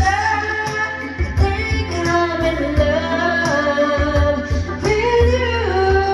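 A woman singing drawn-out, sliding notes into a handheld microphone over a backing track with a steady bass beat; near the end she slides up into a long held note.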